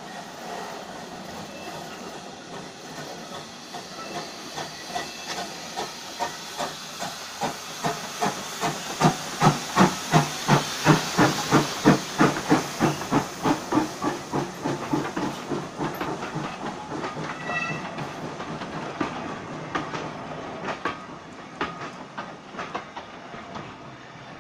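Steam locomotive passing close by, its exhaust chuffing in regular beats that build to loudest around ten seconds in, at about three a second. Its coaches then roll past with the wheels clicking over the rail joints.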